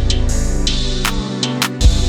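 Background music with a heavy bass line, sustained pitched notes and a regular drum beat.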